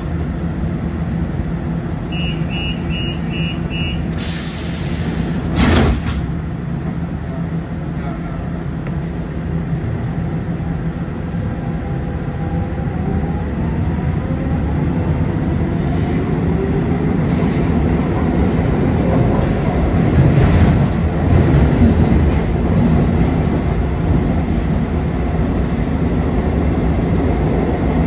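Lisbon Metro train at a platform: a few short door-warning beeps, then a burst of air hiss a couple of seconds later. The train pulls away, its traction motors whining upward in pitch as it accelerates, and wheel and rail rumble grows louder as it enters the tunnel.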